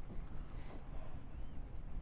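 Maltese dog eating from its bowl: faint irregular chewing and small clicks over a low steady rumble.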